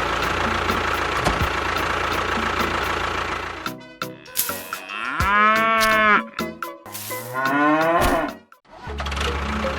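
A steady engine-like running for the first few seconds, then a cow mooing twice: one long call that rises and falls, then a second rising call. A steady low hum comes back near the end.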